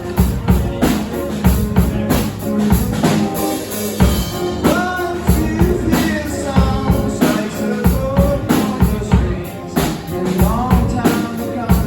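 Live band music: a guitar and a drum kit playing a song together, with steady, dense drum hits throughout.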